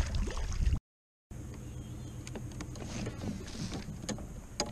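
Water splashing and handling noise over a low wind rumble on the microphone. The sound cuts out abruptly for half a second. It then resumes as a fishing reel being cranked, a light mechanical whirring with small ticks over a steady low rumble.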